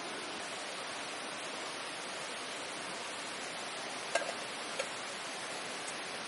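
Wood campfire burning with a steady hiss, and a couple of sharp crackling pops about four seconds in.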